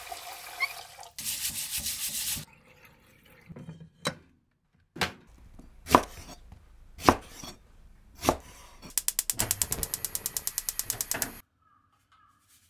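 Tap water running hard into a pot in a stainless-steel sink, then a kitchen knife cutting green onion on a wooden chopping board in single strokes about a second apart. Near the end comes a fast even run of about eight sharp clicks a second that stops suddenly.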